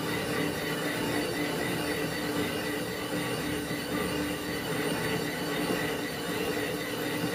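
Small lathe running: a steady mechanical whine with several held tones over a broad rushing noise.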